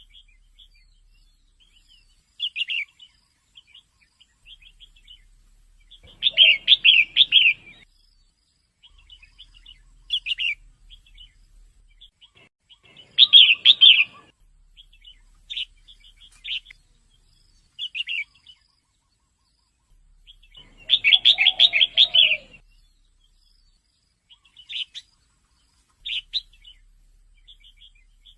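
Female red-whiskered bulbul calling: three bursts of quick chattering notes, about seven seconds apart, with short single notes scattered between them.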